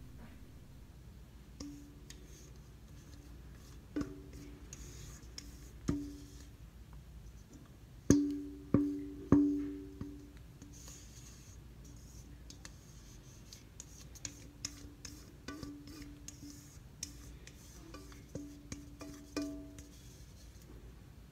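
Background music of sparse, slow plucked-string notes, each ringing out and decaying, with a few faint ticks between them.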